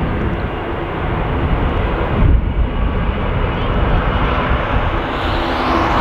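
Jet airliner engines running as the aircraft taxis, a steady rushing noise that grows louder and hissier near the end, over an uneven low rumble of wind on the microphone.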